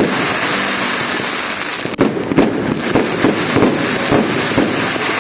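Fireworks going off: a continuous crackling hiss, joined from about two seconds in by a quick string of sharp bangs and pops.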